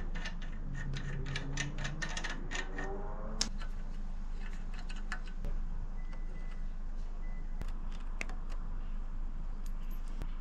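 Scattered small metallic clicks and rattles of hand tools and a bike drive chain, as the rear axle nut is loosened and the chain is worked off with pliers. The clicks come quickly for the first few seconds, then more sparsely, over a faint steady hum.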